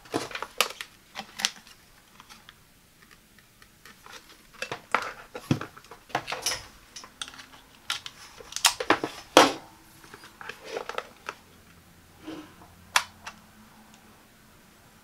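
Handling of an electric kettle and its power cord: scattered clicks, taps and knocks of plastic and metal. The loudest cluster, about nine seconds in, is the plug being pushed into a power strip. A single sharp click near thirteen seconds is the kettle's switch being turned on.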